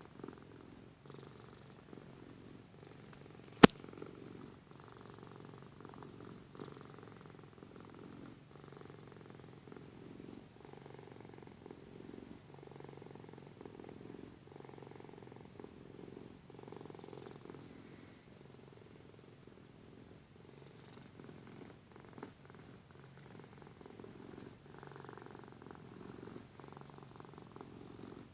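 Domestic cat purring steadily and close, the purr swelling and easing in a slow alternating rhythm. A single sharp click about four seconds in.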